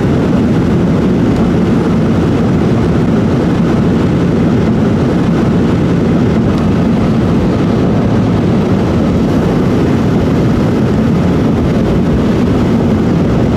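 Steady road noise from a moving car, a low, even rumble of tyres and engine that holds the same level throughout.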